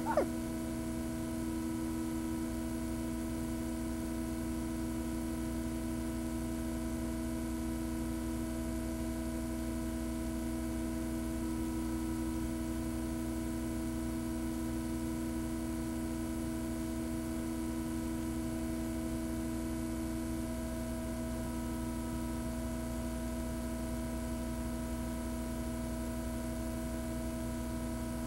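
Steady electrical hum and buzz, a few fixed tones held unchanging over a low drone, with no programme sound over it.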